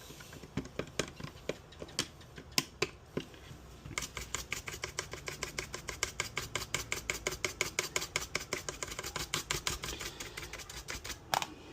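Screwdriver working at a small screw in the plastic cyclone housing of a Dyson stick vacuum: a few scattered clicks, then from about four seconds in a fast, even run of clicks, several a second, with a louder knock near the end.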